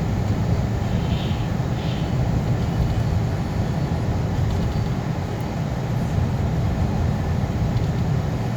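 A vehicle driving, a steady low rumble of engine and road noise.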